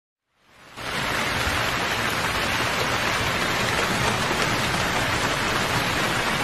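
Steady rain falling, fading in from silence within the first second.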